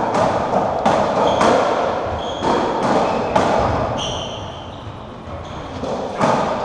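Racketball rally on a squash court: a series of sharp hits of the ball off rackets and walls, echoing in the court, with short high squeaks of shoes on the wooden floor.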